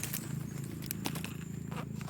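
A few sharp knocks and clicks with some rustling, over a steady low hum.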